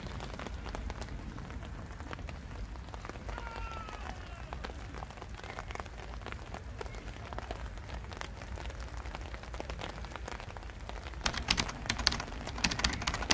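Autumn rain falling, with scattered drops ticking on hard surfaces. About eleven seconds in, a cluster of louder, sharper drop hits comes through.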